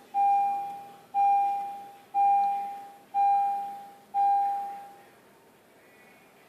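A car's electronic warning chime: five bell-like tones, one a second, each fading away, then they stop.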